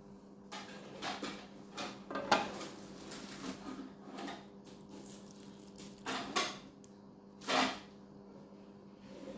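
Plastic takeaway food container being handled and its lid opened, a string of clicks and knocks, then a utensil clinking and scraping against a ceramic dish, over a steady low hum.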